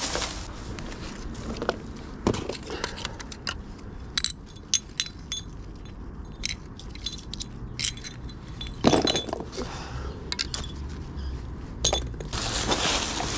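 Litter picking: a metal grabber tool and glass beer bottles giving a run of sharp clicks and glassy clinks, with a louder knock about nine seconds in. A steady rustling noise starts near the end.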